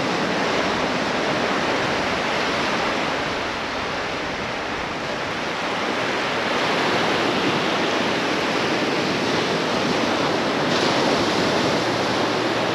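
Ocean surf washing onto the beach, a steady rush of breaking waves that eases a little about four seconds in and builds again a couple of seconds later.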